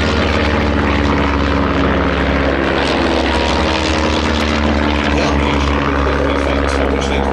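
De Havilland Chipmunk trainer's piston engine and propeller running loud and steady in a low flypast, the engine note sinking slightly in pitch as it goes by.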